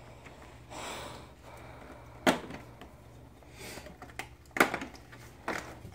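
Plastic side fairing of a Yamaha R1 being pulled free of the bike: a brief rustle about a second in, then several sharp plastic clicks and snaps as its tabs let go, the loudest about two seconds in.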